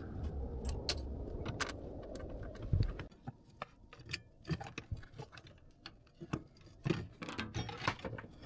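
Boiler flue elbow being handled and seated on the boiler's flue outlet by gloved hands: rubbing and rustling for about three seconds, then scattered light clicks and knocks of the flue parts.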